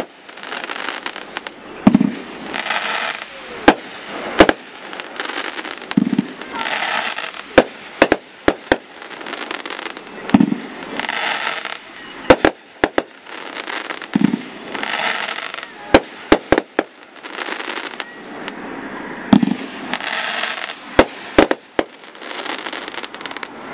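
Multi-shot aerial firework firing shot after shot. There is a dull launch thump every few seconds, many sharp bangs as the shells burst, and hissing, crackling stretches from the crackling stars.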